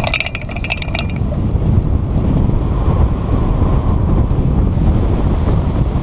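Wind rushing over a hang glider's keel-mounted camera microphone during launch and flight: a loud, steady low rumble. In the first second it is joined by a quick run of clicks and knocks.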